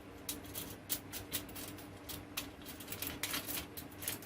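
Small metal bracket parts and hardware clicking and clinking against each other as they are fitted onto an antenna mount, in irregular light taps, over a faint steady hum.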